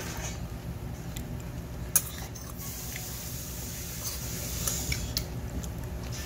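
Metal spoon mixing barley bibimbap in a stainless steel bowl: soft squishing and scraping of rice and greens, with a few sharp clinks of the spoon against the bowl, the loudest about two seconds in. A low steady hum runs underneath.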